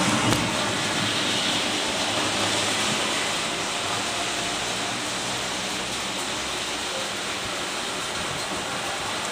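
Rain falling steadily, an even dense hiss.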